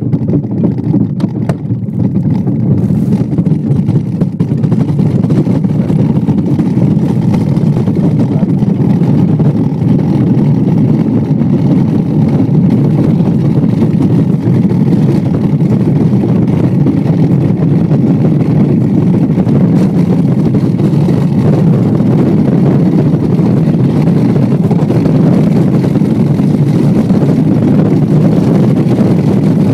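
Bobsleigh speeding down the ice track, heard from inside the sled: a loud, steady rumble of the runners on the ice mixed with rushing air. A few sharp knocks come in the first seconds, and it gets louder over the first several seconds as the sled gathers speed.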